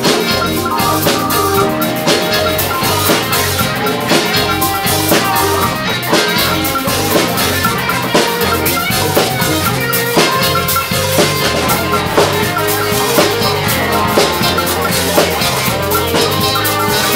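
Live band playing amplified music, with a drum kit keeping a steady beat under electric guitars and other instruments.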